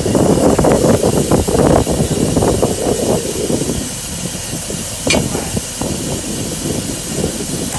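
Compressed air hissing into a truck tire through the air hose. Rough crackling noise fills the first three seconds or so, and a single sharp pop comes about five seconds in.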